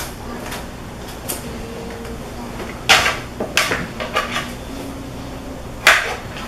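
Kitchen knife cutting yellow squash on a plastic tray: a sharp chop about three seconds in, a run of lighter cuts after it, and another sharp knock near the end.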